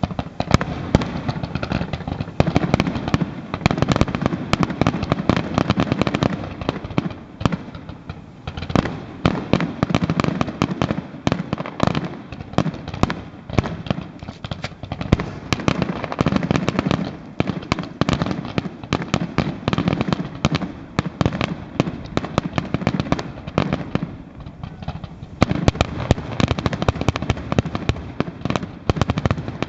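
Fireworks display: a dense, continuous barrage of bangs and crackling, thinning briefly a little before the middle and again near the end.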